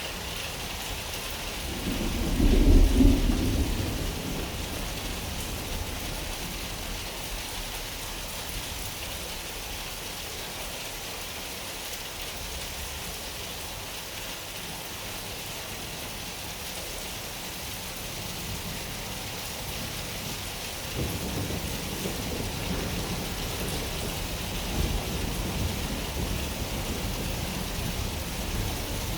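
Steady rain with thunder. A loud thunder rumble swells about two seconds in and dies away over the next couple of seconds, then a long rolling rumble starts about two-thirds of the way through and builds toward the end.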